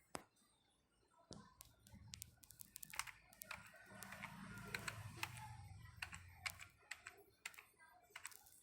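Faint, irregular clicking of computer keyboard keys, starting about a second in and running until near the end, with a low hum underneath through the middle.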